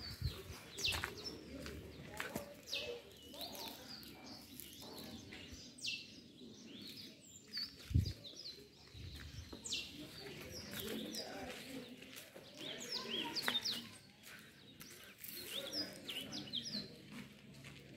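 Small birds chirping repeatedly in short, quickly falling notes over a low outdoor background, with a single low thump about eight seconds in.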